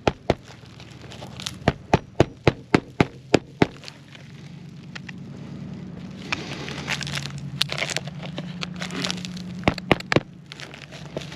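Hammer driving roofing nails through an asphalt shingle. A quick run of sharp strikes, about four a second, comes between two and four seconds in, and a few more strikes follow near the end.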